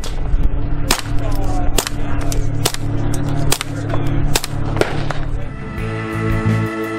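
Suppressed .22 rimfire shots from a Ruger fitted with a Q Erector suppressor, fired about once a second, six times, with music underneath; the shots stop about five seconds in and guitar music carries on.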